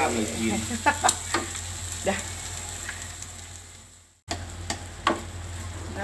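Sausage, egg and frozen greens sizzling in a wok while a spatula stirs and scrapes them, with sharp taps of the spatula on the pan. The sound fades and drops out briefly about four seconds in, then comes back.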